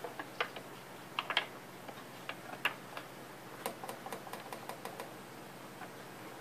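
Irregular light clicks and taps of weight cord being pulled through over the pulley inside a wooden clock case, scattered at first, then a quick run of about ten clicks a little past the middle.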